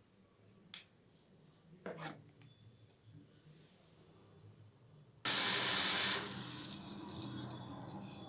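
Tap water being poured into a steam vaporizer's water chamber. A couple of handling clicks come first, then about five seconds in the water comes in with a sudden loud rush for about a second and settles to a steadier, quieter pour.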